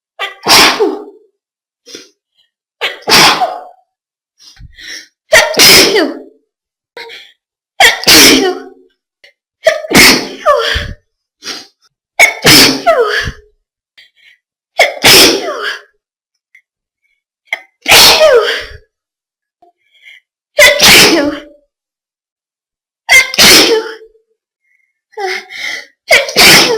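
A series of about eleven loud sneezes, one every two to three seconds, with short, quieter breaths or catches between some of them.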